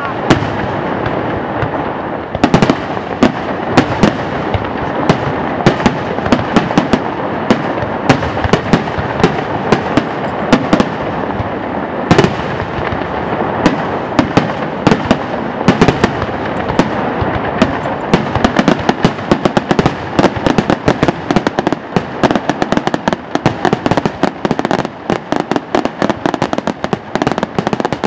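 Large fireworks display: shell bursts and bangs follow one another over a continuous rumble. From about two-thirds of the way in, the bangs and crackles come much faster and denser.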